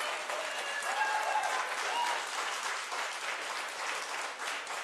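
A roomful of people applauding, a dense run of clapping.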